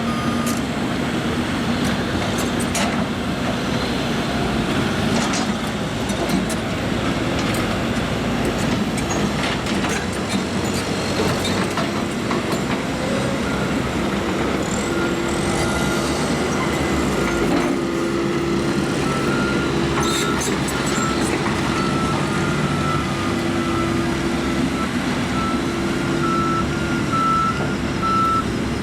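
John Deere 160G excavator's diesel engine running under load, with scattered knocks and clanks of the machine working. From about halfway through, a backup alarm beeps steadily.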